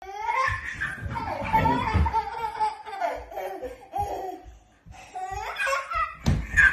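A toddler laughing and squealing in bursts, over low thumps of small feet on a wooden floor, with a louder thump near the end.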